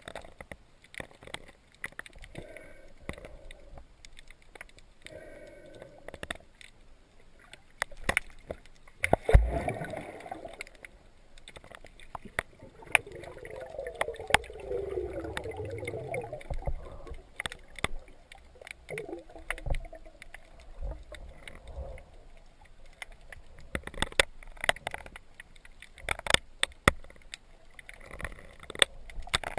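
Underwater sound picked up by a camera on a speargun: scattered sharp clicks and crackles throughout, a louder knock about nine seconds in, and a bubbling gurgle in the middle.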